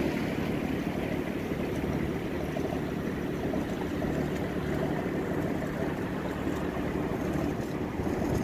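A boat's inboard engine running at a steady cruising speed, heard from on board as a continuous drone.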